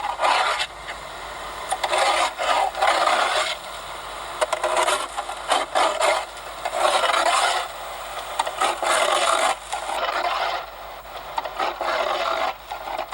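Ice scraper rasping ice off a car, in repeated long strokes about every second or two.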